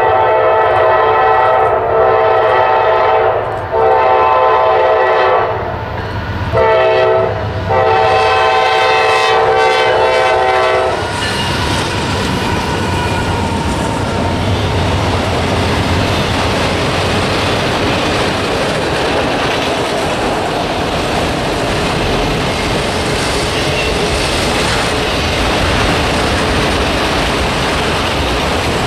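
Norfolk Southern freight locomotive's air horn sounding the grade-crossing signal, two long blasts, a short one and a final long one, over about eleven seconds. Then the steady rumble and clatter of autorack cars rolling past on the rails.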